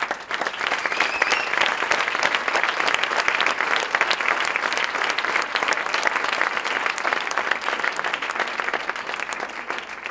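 Audience applauding, many hands clapping together. It starts suddenly, holds steady and thins slightly near the end.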